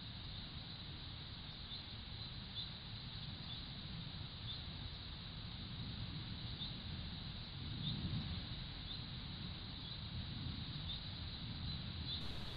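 Riverbank ambience picked up by a Bushnell trail camera's built-in microphone: a steady hiss and a low, uneven rumble, with faint short high chirps repeating every second or so.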